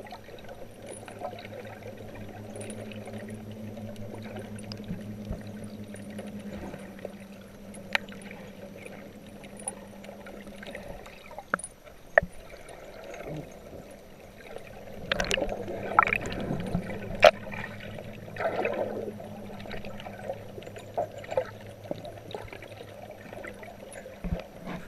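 Sea water heard with the microphone under the surface: muffled sloshing and scattered sharp clicks and crackles, with a steady low hum through about the first half and a busier stretch of splashing a little past the middle.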